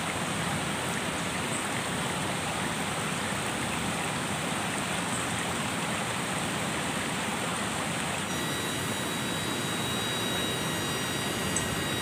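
Steady, heavy rush of water, the sound of a strong downpour or a fast river current. About eight seconds in, a few thin, steady high tones join it.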